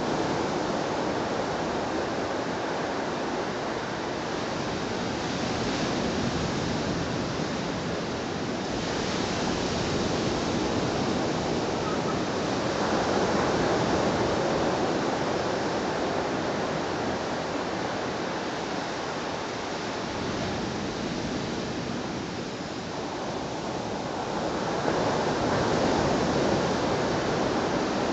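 Shallow brook running over a sandy bed: a steady gurgling rush of water that swells and eases every several seconds.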